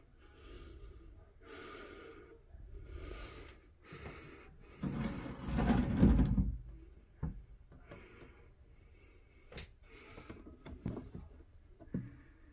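Plastic terrarium boxes and their vented lids being handled and shifted: rustling, rubbing and knocking, loudest in a low scraping rumble about five to six seconds in, followed by a few sharp clicks.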